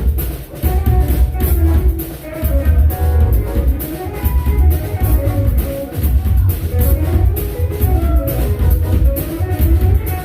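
A live jazz band playing, with a drum kit keeping time over a heavy pulsing bass line and pitched melody and chords above.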